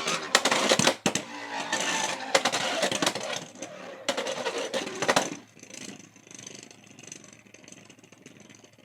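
A Beyblade X spinning top, Pegasus Blast on its Turbo bit, is launched and rattles and scrapes around a plastic stadium with many sharp clicks and knocks. About five seconds in, the sound drops to a faint, fading whir as the top loses speed.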